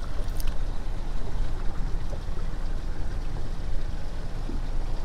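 Steady low wind rumble on a head-mounted camera's microphone, with water moving around a small boat.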